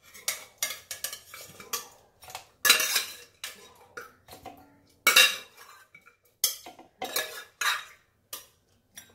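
Cooked chicken pieces tipped out of a pressure cooker into a stainless-steel bowl: a string of irregular metal clanks and scrapes as the pot knocks against the bowl, some ringing briefly.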